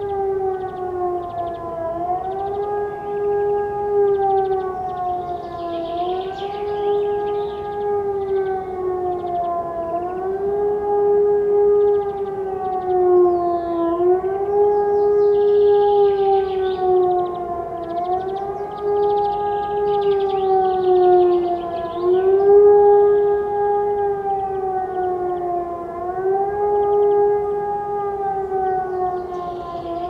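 Hörmann pneumatic high-power siren heard from about 3 km away, sounding the German 'warning of the population' signal: a continuous wail whose pitch rises and falls in cycles of about four seconds.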